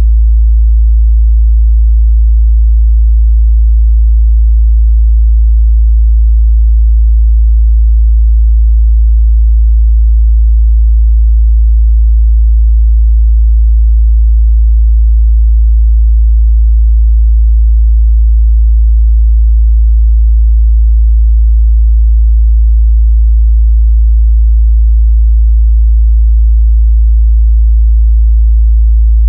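A steady, loud 55 Hz sine-wave test tone, a continuous pure low bass hum that holds unchanged throughout.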